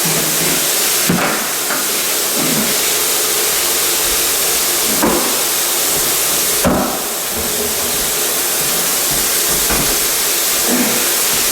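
Electric fan blowing a steady hiss, with a few scattered knocks, the clearest about a second in and about five and seven seconds in.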